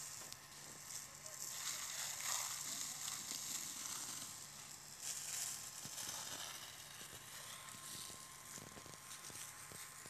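Faint hissing with light crackles from a smouldering, freshly burnt pine forest floor, the hiss swelling and fading.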